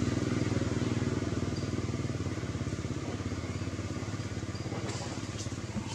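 A small engine running steadily with a fast pulse, slowly fading away, with a few faint short high chirps above it.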